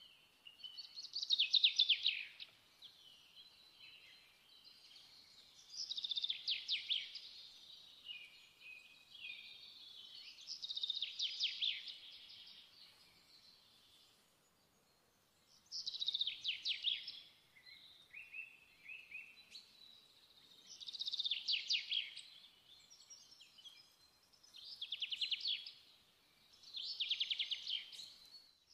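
A songbird singing: a short, quick trilled phrase about every four to five seconds, with fainter twittering between phrases.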